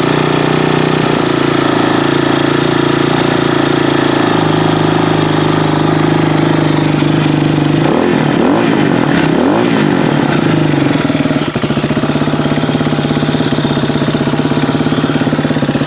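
RPS Hawk 250 dual-sport motorcycle's single-cylinder four-stroke engine running at idle. It is revved up and down a couple of times about halfway through, then settles back into a fast, pulsing idle. It is not running well: the owner finds its valves set far too tight and its carburettor still running lean.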